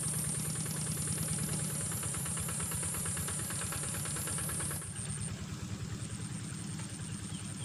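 A small engine running steadily with a fast, even beat and a high wavering whine above it; both ease off and get quieter about five seconds in.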